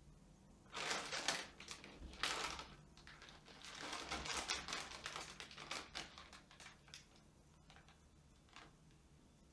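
Plastic chips packet crinkling as it is picked up and turned over in the hands, in irregular bursts that die down after about six seconds.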